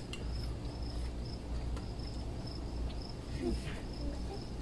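Crickets chirping: a thin, high-pitched chirp repeating at an even pace, over a steady low rumble. A few light clicks, like utensils on plates, fall in between.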